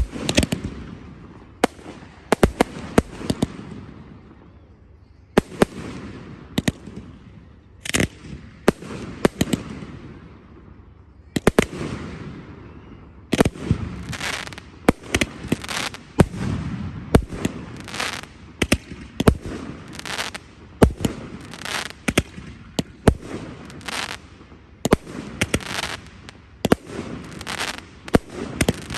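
Aerial fireworks display: a run of sharp shell bursts and bangs, some in rapid clusters, with crackle and rumble between them, getting denser from about halfway through.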